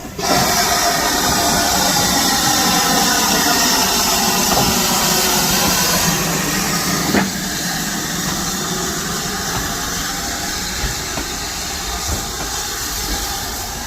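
Steam locomotive venting steam: a loud steady hiss that starts suddenly and eases a little about seven seconds in.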